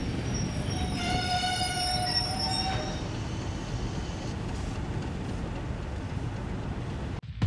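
Railway carriage running on the rails, a steady low rumble. About a second in, a train whistle sounds as one steady pitch for about two seconds.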